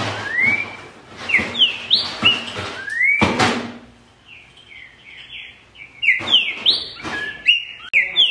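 Green-winged saltator (trinca-ferro) singing loud whistled phrases of short notes that slide up and down. It sings in two bouts with a quieter gap in the middle, and there is a brief harsh noise about three seconds in.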